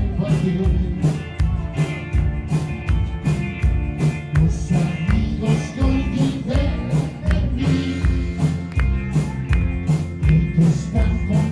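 Rock band music with a drum kit keeping a steady beat under bass and guitar.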